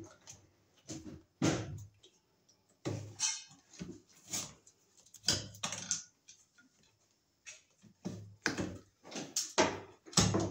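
A man puffing short breaths through pursed lips as he works overhead, with small clicks and rustles of pliers and electrical wires in between. The sounds come in short, irregular bursts.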